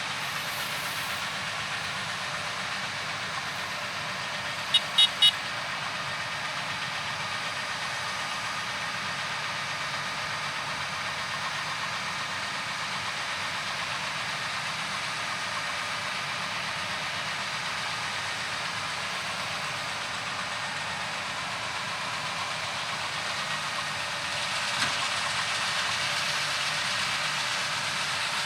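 John Deere S680 combine running steadily while harvesting corn, a continuous machine noise that grows louder near the end. Three short high-pitched chirps about five seconds in.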